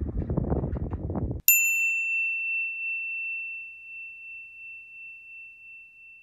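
Wind buffeting the microphone for about a second and a half, cut off abruptly. A single bright ding follows, like a struck wine glass: one clear ringing tone that slowly fades over about five seconds.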